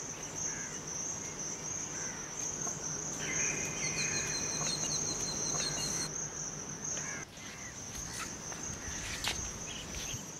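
Insects chirring in a steady, high, continuous trill, with a few short faint chirps over it.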